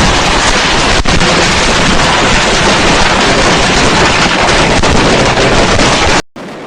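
Fireworks going off in a dense, continuous barrage, loud enough to overload the recording, with a few sharper cracks standing out. It cuts off suddenly near the end.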